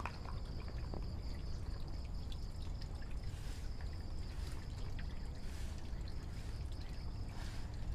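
Water trickling steadily into a shallow tarpaulin frog-rearing tank, with a steady high whine in the background.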